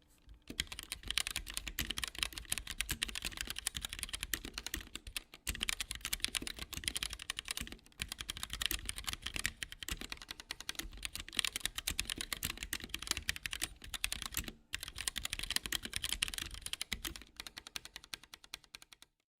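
Fast typing on a mechanical keyboard with stock, unlubed Gateron Yellow linear switches: a dense run of keystroke clicks and clacks, broken by a few short pauses, stopping just before the end.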